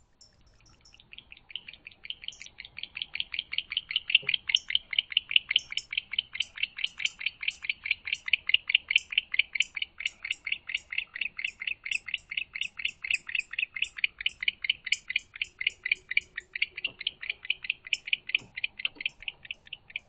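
Barn owl twittering: a long, fast run of short high chittering notes that grows louder over the first few seconds and then goes on steadily. It is the pair's contact chatter as the mate joins the owl in the nest box.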